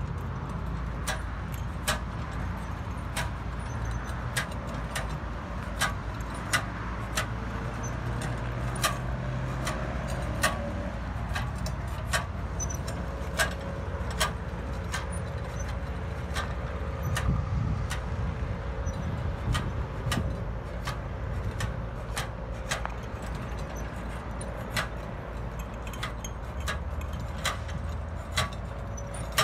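Propane-fired hot-rubber crack-sealing melter cart being pushed and worked over asphalt: irregular sharp metallic clicks and rattles, roughly one a second, over a steady low rumble.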